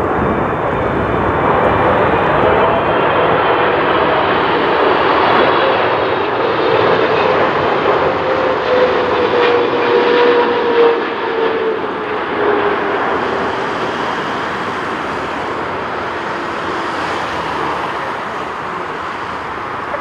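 Boeing 777-300ER's GE90 turbofan engines on final approach, a loud steady jet roar as the airliner flies low past, with an engine whine that slowly drops in pitch as it goes by.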